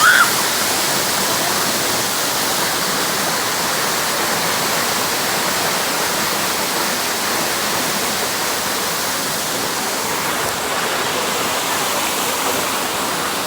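Waterfall rushing: a steady hiss of falling water with no let-up.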